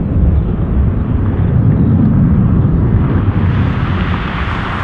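The four Rolls-Royce Trent 900 engines of an Airbus A380-842 spooled up for takeoff: a deep, steady rumble, with a harsher hissing roar building over the last two seconds.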